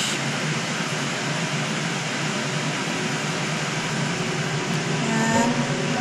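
Steady rushing hum of a running ventilation fan.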